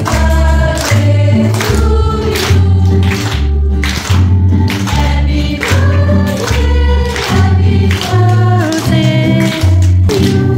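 A group of voices singing a Christian song together over amplified backing music with a steady bass beat, with hands clapping along.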